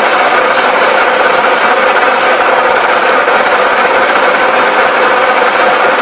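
1V61 screw-cutting lathe running steadily while a freshly turned brake caliper guide pin is polished in it with 120-grit sandpaper: an even rubbing hiss over the machine's running noise.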